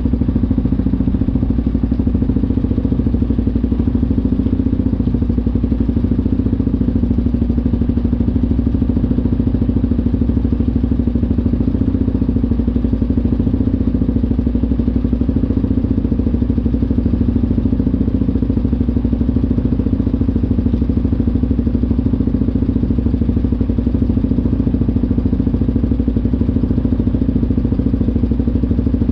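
ATV engine idling steadily, close by, with an even hum that does not change.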